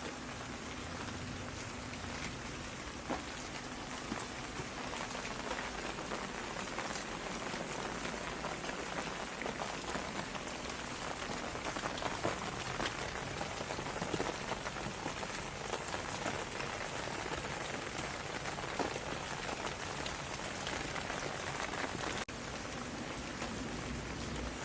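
Steady rain falling, with many separate drops pattering on a surface, and a momentary dip in level near the end.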